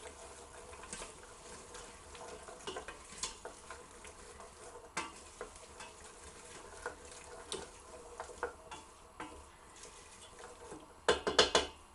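Diced onion and potato frying gently in vegetable oil in a pan while a spoon stirs them, a faint sizzle with scattered light scrapes and taps. Near the end come several sharp, louder knocks of the utensil against the pan.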